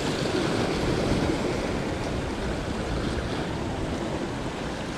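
Sea waves washing steadily, with wind on the microphone.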